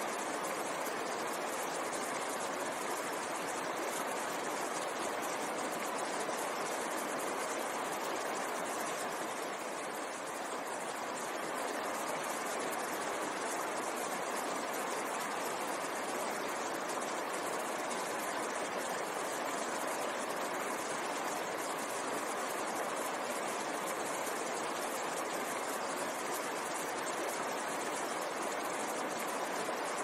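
Fast mountain stream rushing over rocks in a steady, unbroken rush of water.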